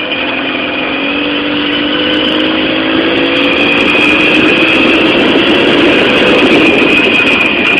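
Jawa Babetta 207.500 moped's small two-stroke engine accelerating, its pitch climbing steadily and growing louder through the first half, then holding at a higher speed.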